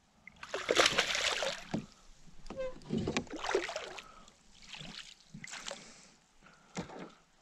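Water splashing and sloshing in several short bursts: a hooked bass thrashing at the surface beside a kayak as a landing net is dipped in.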